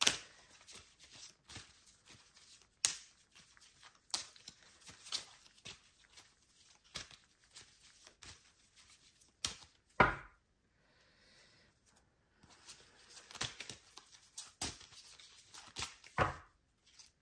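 A deck of tarot cards being shuffled and handled by hand: irregular soft rustles and flicks with a few sharper card snaps, the loudest about ten seconds in.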